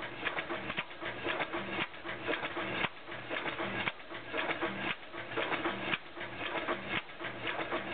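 Large hit-and-miss stationary engine running, a busy mechanical clatter of its valve gear with a heavier beat about once a second.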